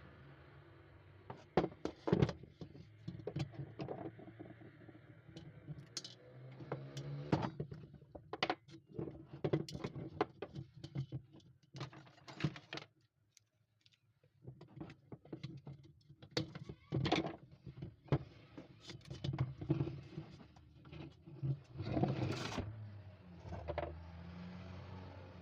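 Irregular clicks, knocks and clinks of small hard parts and tools being handled, over a low steady hum; the sound drops out briefly about halfway through.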